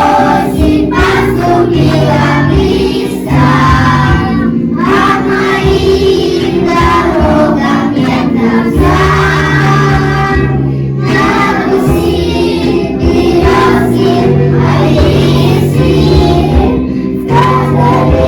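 A song with a group of children singing over backing music of held chords.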